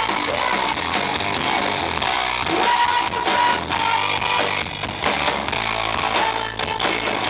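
A band playing rock music with guitar and drum kit, held notes ringing over a steady beat. The recording is heavily distorted and overloaded.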